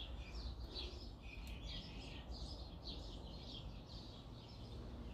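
Small birds chirping faintly and repeatedly, about two to three short high chirps a second, over a faint low hum.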